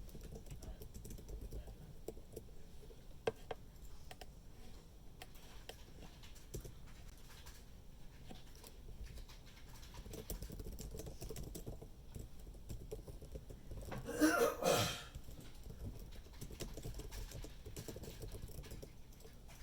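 Light, scattered clicking of typing on a computer keyboard, with a person's short cough, in two quick pushes, about three-quarters of the way through.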